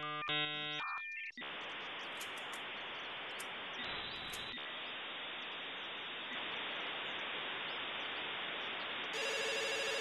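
Electronic beeps for about a second, then a steady hiss of static, and near the end a landline telephone starts ringing.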